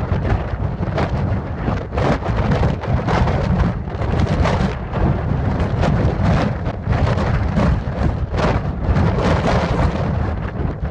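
Loud, continuous storm noise of wind and heavy rain, with a deep rumble underneath and many irregular crackling surges.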